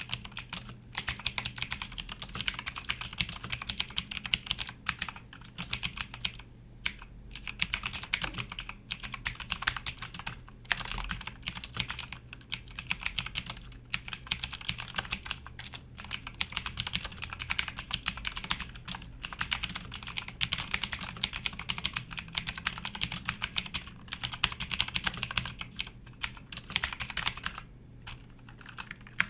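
Fast, continuous typing on a Motospeed CK101 mechanical keyboard with Outemu Blue clicky switches: a dense run of sharp keystroke clicks, broken by a few brief pauses.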